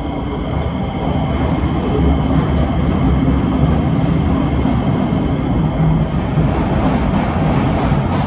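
Running noise of a Kawasaki C151A metro train heard from on board: a steady rumble of wheels on the rails that grows louder about a second in as the train gathers speed, with a faint high, steady whine over it.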